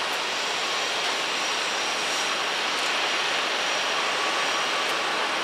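Airbus A380's four Rolls-Royce Trent 900 turbofan engines at takeoff thrust during the takeoff roll: a steady rush of jet noise that grows slightly louder as the aircraft gathers speed.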